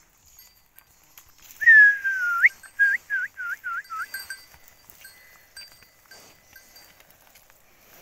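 A loud whistle: one long falling note that flicks up at its end, then about six short falling notes. A cow's bell clinks faintly.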